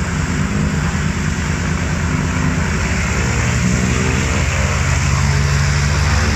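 Antonov An-2 biplane's nine-cylinder radial engine running on the ground with its propeller turning. About halfway through the engine note strengthens and gets louder as power is increased, and the propeller wash blows up dust behind the aircraft.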